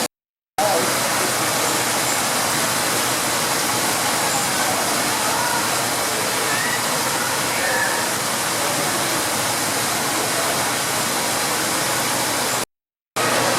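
Steady rush of falling water, as from an aquarium waterfall, broken twice by a half-second gap of dead silence.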